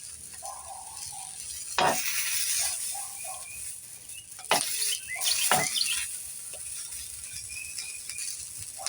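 Food sizzling in a frying pan, with a few sharp scrapes or clinks of a cooking utensil against the pan.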